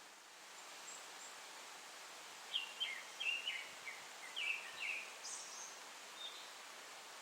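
A songbird sings a short phrase of quick, sharp notes starting about two and a half seconds in and lasting about two and a half seconds, over a steady background hiss.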